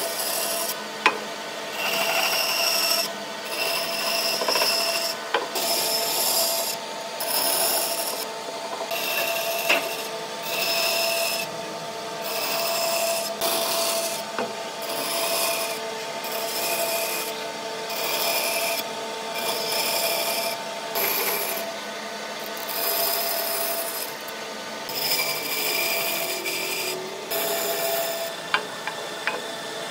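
Bandsaw cutting into a wooden workpiece in a series of short cuts, each about a second of rasping hiss. The saw's steady running hum carries on in the gaps between cuts.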